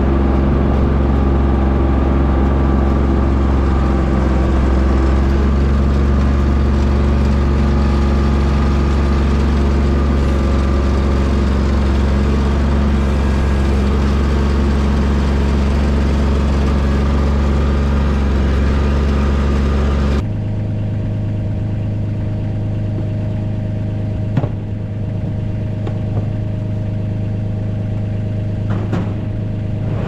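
The loader's engine running steadily close up. About two-thirds of the way through, the sound cuts to a lighter, steady engine idle, with a couple of short knocks.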